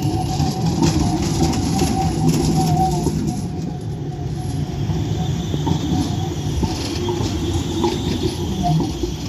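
Alstom Citadis tram rolling past close by on a curve: a steady rumble from the running gear with a thin wheel squeal on the curved rails, which gains higher squealing tones about halfway through.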